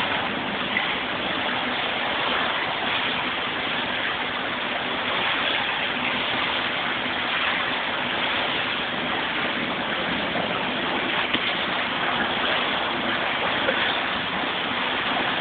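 Pool water splashing and churning steadily as a swimmer thrashes through it with his arms, with a few small slaps.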